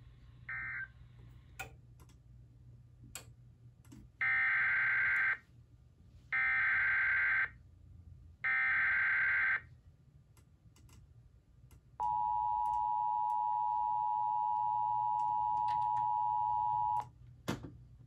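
TFT EAS 911 encoder sending an Emergency Alert System header: three bursts of SAME digital data tones, each about a second long with about a second between them. About twelve seconds in comes the steady two-tone attention signal, which lasts about five seconds and cuts off. A short beep near the start and a few faint clicks.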